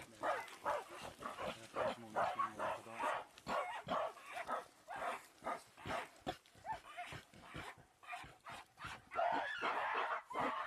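An animal giving many short, irregular barking calls in quick succession, getting denser near the end.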